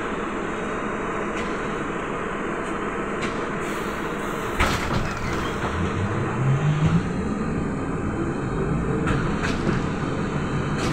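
Cabin noise inside a Trolza-5275.05 Optima trolleybus: a steady rumble, a sharp knock about four and a half seconds in, then a low hum rising in pitch for a second or two.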